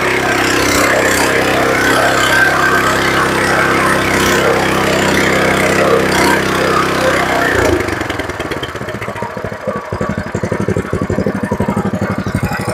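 6.5 HP GX200-type single-cylinder four-stroke gasoline engine running steadily at speed, then throttled back about seven seconds in, dropping to a slow idle with distinct firing beats.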